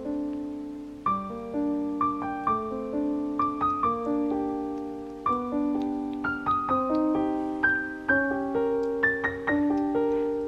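Background piano music: a melody of struck notes, each fading as it rings.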